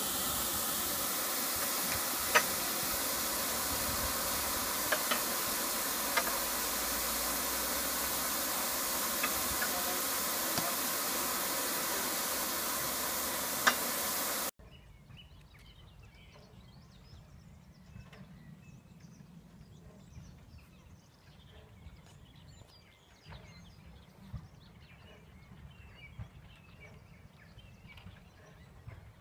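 Steam blowing off from the boiler of William Hedley's 1813 Wylam steam locomotive: a loud, steady hiss as excess boiler pressure is released, with a few sharp clicks. About halfway through it cuts off abruptly to a quiet outdoor background with faint scattered chirps.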